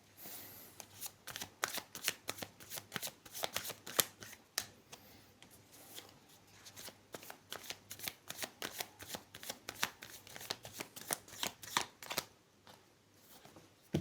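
Tarot cards being shuffled by hand: a long run of quick, papery snaps and flicks that eases off briefly about six seconds in and again near the end.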